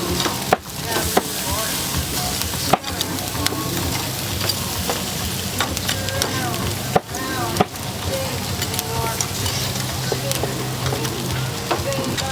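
Food sizzling steadily as it cooks, with stirring and about five sharp knocks scattered through.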